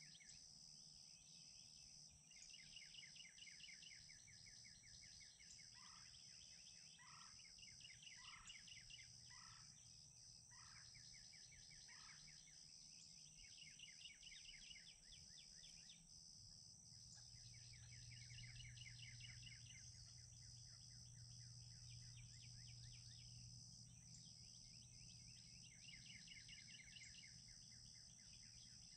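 Faint field ambience: a steady high insect drone with repeated high trills. A series of six short, evenly spaced calls from a distant wild turkey comes about six to twelve seconds in.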